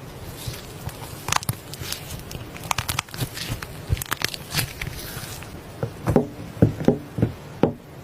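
Hands pressing and poking soft slime: a run of sharp crackles and clicks as air pockets pop, then a few louder, lower pops near the end.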